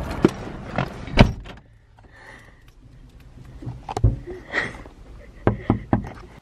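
Car door and lock handling heard from inside the car: a string of sharp clicks and knocks, the loudest about a second in, with three quick knocks near the end.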